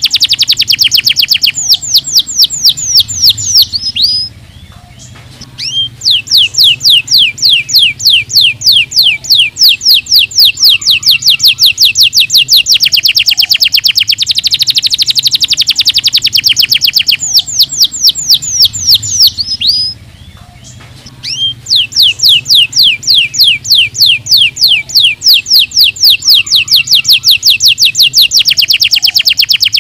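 Domestic canary singing long rolling trills of fast, evenly repeated high notes, which stop twice for about two seconds.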